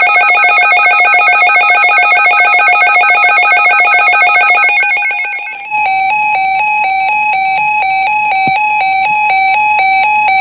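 Loud electronic alarm tones: a fast pulsing, buzzy beep pattern for about five and a half seconds, then an abrupt switch to a slower tone alternating between two pitches.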